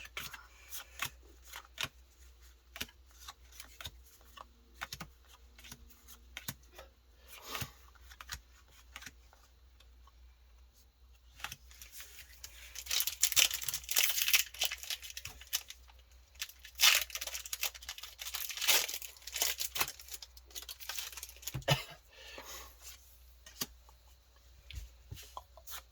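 Foil Pokémon card booster pack being torn open and crinkled, in two louder bursts of crackling around the middle, over frequent small clicks and rustles of handling.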